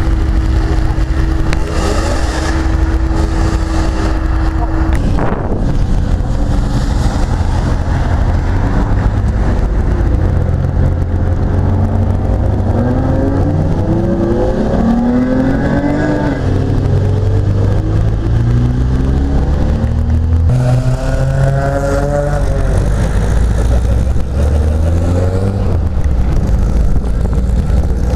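Car engines pulling away one after another, revving up through the gears with rising and falling pitch, over a constant low rumble.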